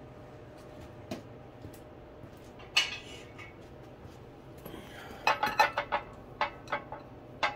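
Sharp metallic clinks and rattles of steel parts being handled at a hydraulic bottle-jack shop press. There is a single ringing clink about three seconds in, then a quick run of clinks from about five seconds on as the steel pump handle is fitted into the bottle jack's socket.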